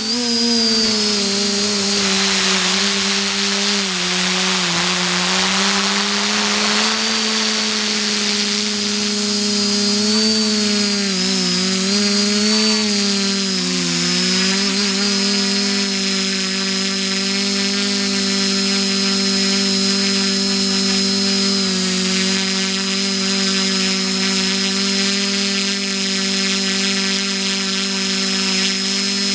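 XJ470 multirotor drone's electric motors and propellers droning, heard from the camera mounted on it. The pitch dips and wavers with the throttle about four seconds in and again between eleven and fourteen seconds, then holds steady, over a faint high whine.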